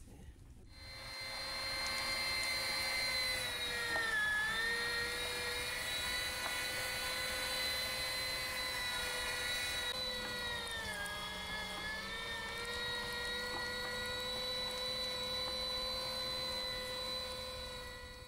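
Electric meat grinder's motor starting up and running with a steady whine as it grinds meat and pork fat. Its pitch sags briefly twice, about four and eleven seconds in, as the load of meat slows it.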